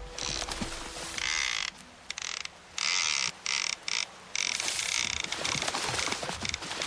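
A rapid mechanical ratcheting clatter that starts and stops abruptly in bursts of roughly half a second to a second.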